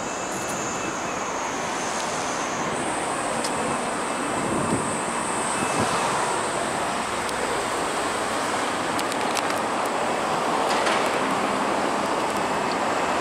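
Steady wash of road traffic from an elevated expressway, with a thin high whine over it that steps up slightly in pitch about three seconds in.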